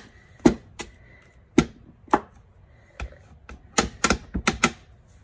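Clear acrylic stamp block with a photopolymer stamp knocking and tapping on an ink pad as the stamp is inked: a few separate knocks, then a quick run of about six taps near the end.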